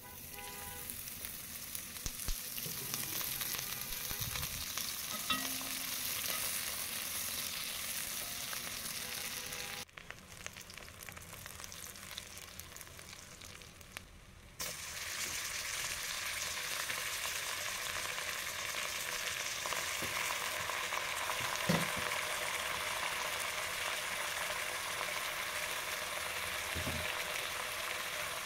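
Sliced onions, bay leaves and whole spices sizzling as they fry in hot oil in a pan. The sizzle drops for a few seconds about a third of the way in, then comes back louder. There are a couple of dull thumps near the end.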